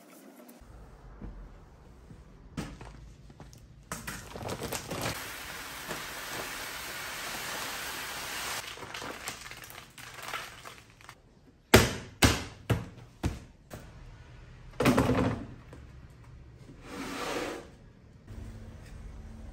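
Rice pouring from a plastic bag into a plastic rice dispenser, a steady rushing hiss lasting several seconds. Then a quick run of sharp plastic knocks and clicks, the loudest sounds here, and a couple of duller bumps as the dispenser is handled and set down.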